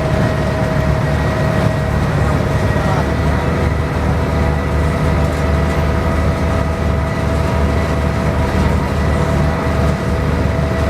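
Harbour ferry's engine running steadily, a deep, constant drone with steady hums layered above it.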